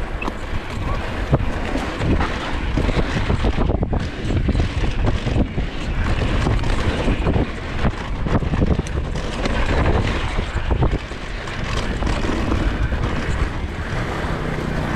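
Wind rushing over the camera microphone and the rumble of a Polygon Xquareone DH9 downhill mountain bike's tyres on a dirt trail at speed, with scattered knocks and rattles as it hits bumps.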